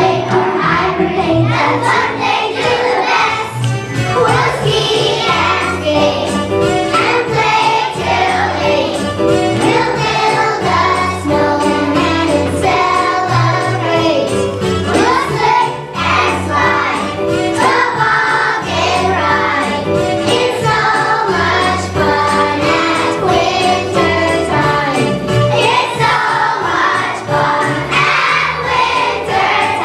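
A choir of first-grade children singing together over an instrumental accompaniment with a steady bass line.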